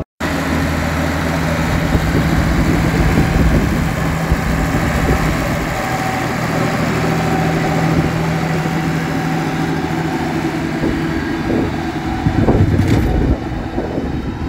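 Massey Ferguson 3080 tractor's diesel engine running steadily under load, a constant drone over a wide rumble, growing a little uneven near the end.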